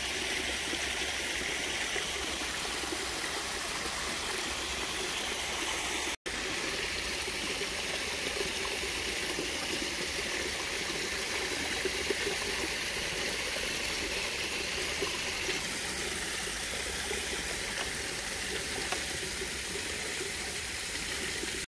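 Steady rush of water from a small homemade dredge, its 12 V 1100 gph bilge pump driving water through a venturi nozzle and out of the outlet. There is a momentary break about six seconds in.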